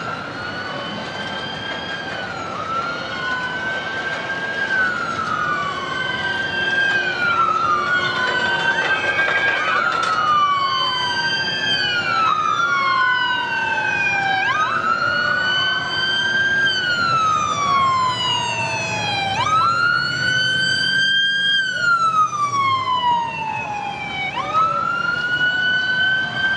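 Emergency vehicle siren wailing: the pitch rises quickly and falls slowly, about once every two seconds. A second siren overlaps out of step for much of the time.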